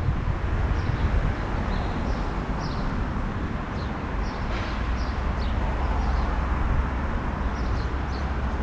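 Outdoor ambience: a steady low rumble of wind and traffic, with small birds chirping in short high calls again and again.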